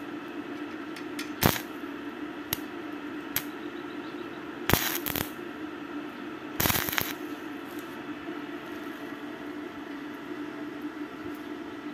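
Stick welder with a stainless electrode striking its arc twice, two short bursts of about half a second each, tack-welding a steel caster plate to the frame. A few light metal clicks come before them, over a steady low hum.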